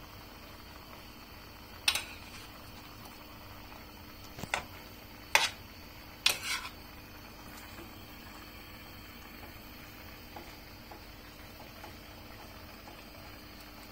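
A utensil knocking against a sac pan: four sharp knocks in the first half, then only faint ticks over a steady low hum.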